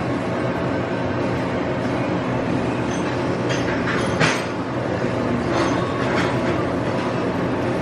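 Machine-shop machinery running steadily, with a few short sharp metallic sounds in the middle, the loudest a little past four seconds in.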